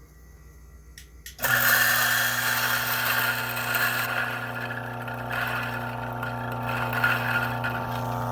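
DF64 single-dose coffee grinder's motor switching on suddenly about a second and a half in and running with a steady hum. It grinds a small dose of coffee beans through its 64 mm flat burrs.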